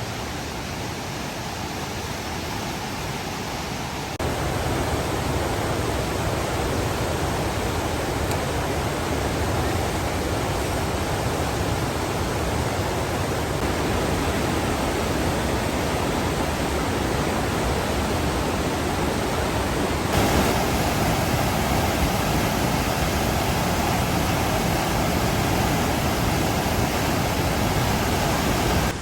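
Flood-swollen Housatonic River rushing past in a steady, loud roar of fast water. The level steps up suddenly about four seconds in and again around twenty seconds in.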